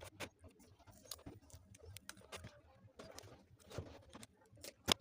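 Faint, irregular light taps and clicks, as of small objects being handled, with a louder pair of clicks near the end.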